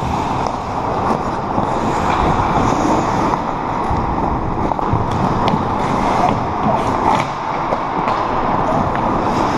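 Ice hockey play: skate blades scraping and carving on the ice over a steady rushing background, with a few sharp clicks of sticks and puck around the middle and near the end.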